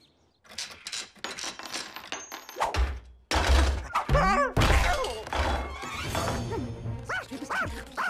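Cartoon slapstick sound effects: a quick run of clattering, knocking and crashing, followed about two and a half seconds in by lively background music with a heavy bass line and pitched, swooping sounds over it.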